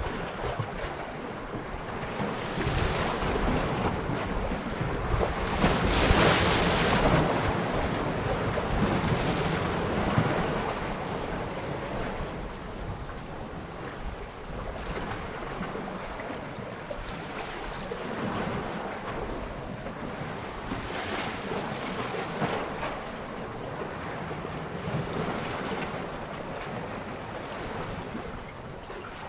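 Small sea waves washing against shoreline rocks, the surf swelling and easing in irregular surges, loudest about six seconds in.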